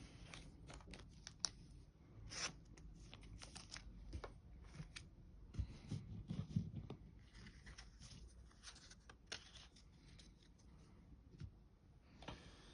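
Faint tearing, crinkling and clicking of a foil Pokémon booster pack being opened and its cards handled, in many short, scattered rustles.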